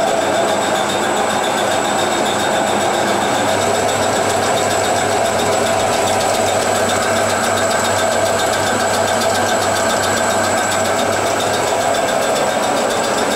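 Supertatramat automatic front-loading washing machine running: a steady, unchanging mechanical drone with a low hum and a held mid-pitched tone.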